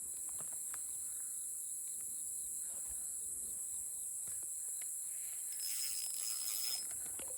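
Insects chirring in a steady high-pitched chorus, with a few faint clicks and a short extra buzz a little past halfway.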